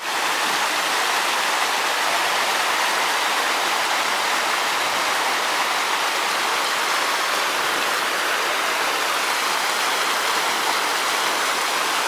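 Small woodland stream rushing and splashing over mossy rocks and little cascades, a steady, loud rush of water.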